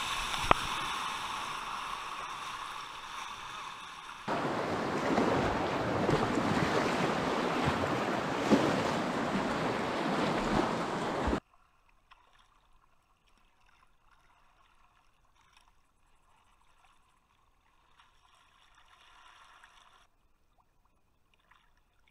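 Rushing river water and splashing around a whitewater kayak, jumping louder about four seconds in, then cutting off suddenly about eleven seconds in to near silence with only faint muffled sounds.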